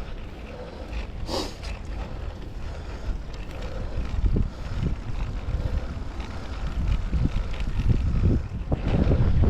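Wind buffeting the microphone of a camera carried on a moving ride: a gusty low rumbling noise that swells over the last few seconds, with a brief sharp rustle about a second and a half in.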